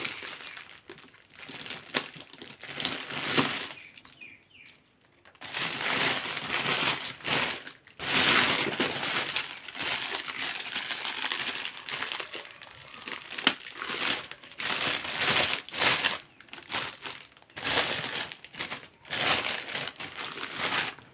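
Clear cellophane gift wrap crinkling and rustling as hands pull it open, in uneven bursts with a short lull about four to five seconds in.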